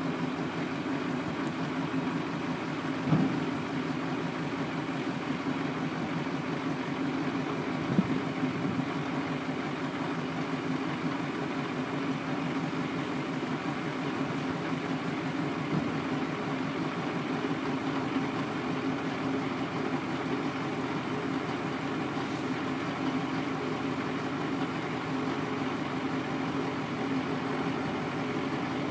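Truck engine idling steadily while the hydraulic hoist lets an end-dump trailer's box down, with a few brief knocks, the clearest about three and eight seconds in.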